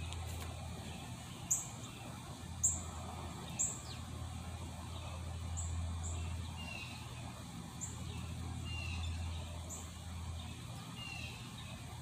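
Wild birds chirping at dawn: short, sharp high chirps about every second or so, with a few lower falling notes later on, over a steady low hum.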